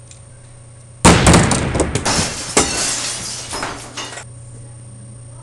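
A sudden loud crash of shattering glass about a second in, with breaking and tinkling going on for about three seconds before it cuts off abruptly.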